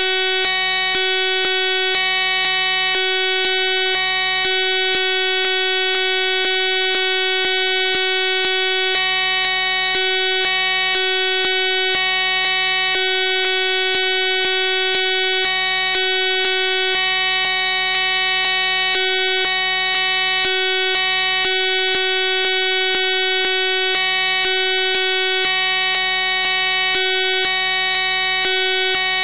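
Loud, steady electronic buzzing and hiss: several fixed tones over a bright high hiss, with a lower hum cutting in and out every half second or so. It sounds like a broken or corrupted audio track rather than any sound in the room.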